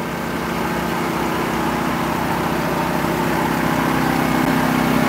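An engine running steadily: a low, even hum that grows slightly louder over a few seconds.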